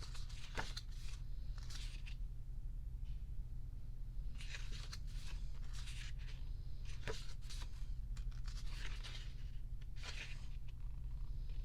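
Pages of a photobook being turned by hand: a soft papery swish or rustle every second or two, over a steady low hum.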